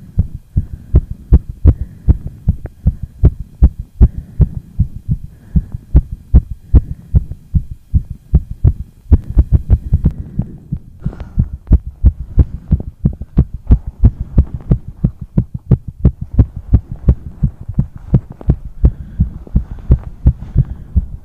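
Fast human heartbeat picked up by a phone lying on the chest: a quick, even run of low thumps in lub-dub pairs.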